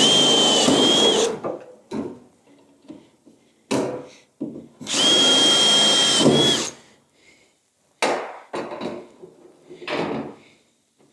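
Power drill drilling rivet holes through the aluminium capping and rear panel of a Land Rover Series 3 tub: two bursts of one to two seconds, the motor's high whine dipping briefly near the end of each, with knocks and handling noises between.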